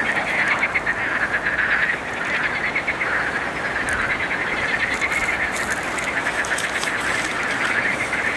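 A chorus of frogs croaking together: many overlapping calls in a continuous, rapid rattling.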